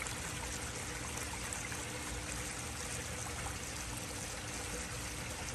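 Garden pond waterfall running, a steady trickle of water.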